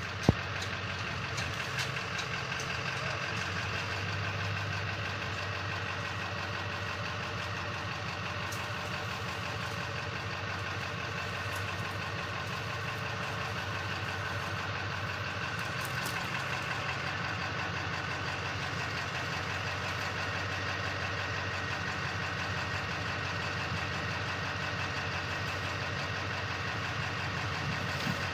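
Truck engine idling steadily, with a single sharp click or knock just after the start.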